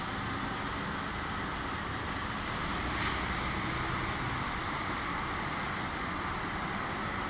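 Steady rushing background noise, with a brief hiss about three seconds in.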